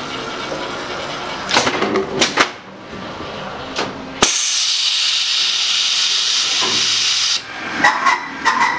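Paper-towel laminating machine running: a few sharp clacks, then a sudden loud hiss that lasts about three seconds and cuts off abruptly, followed near the end by rapid rhythmic clattering.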